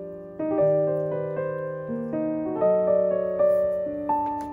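Background piano music: a gentle melody of single notes struck one after another, each fading away, over held lower notes.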